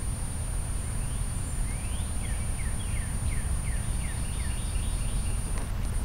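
Northern cardinal singing a series of about eight falling whistled notes, roughly three a second, starting about two seconds in, with higher, faster notes near the end, over a steady low rumble.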